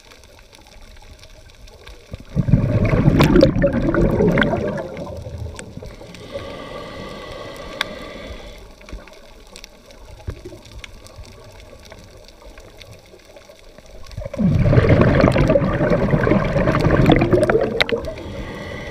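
Scuba breathing heard underwater: two long bursts of exhaled bubbles gurgling and crackling from a diver's regulator, about two seconds in and again about fourteen seconds in, each lasting a few seconds, with a fainter hiss of an inhalation between them.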